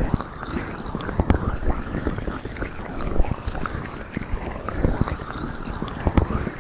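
Intense ASMR ear massage on a binaural microphone: hands rubbing and pressing over the mic's ears, giving muffled rustling with irregular low thumps and small crackles.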